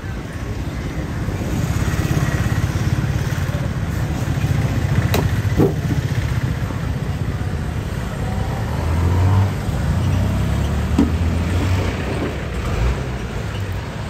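Steady low rumble of a motor vehicle running close by in road traffic, swelling louder about nine seconds in. A few short sharp knocks sound over it.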